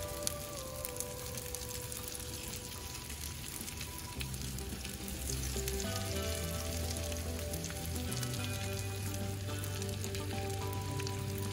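Breadcrumb-coated grouper fillets frying in hot oil in a cast iron skillet: a steady sizzle with fine crackles, a little louder from about five seconds in.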